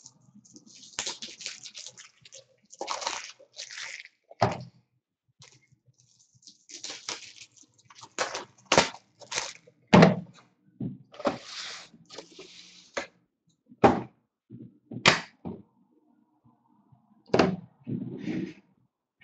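Things being handled on a tabletop: an irregular string of short knocks and taps mixed with plastic crinkling as a plastic-wrapped pack of toploaders is picked up and moved.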